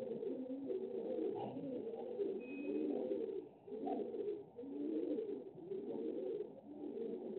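A bird calling over and over: a low call that rises and falls, repeating in a steady pattern.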